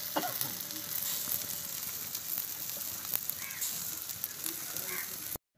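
Pork belly sizzling on a wire grill over charcoal: a steady hiss with scattered small pops. It cuts off suddenly near the end.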